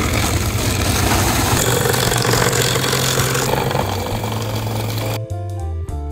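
Electric ice shaver crushing ice into shaved ice, a loud grinding noise that cuts off about five seconds in.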